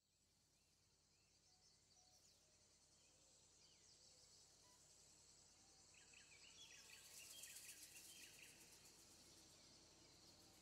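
Faint nature ambience of bird chirps and insect trilling, fading in from silence and growing louder. A rapid, high insect trill comes in about seven seconds in.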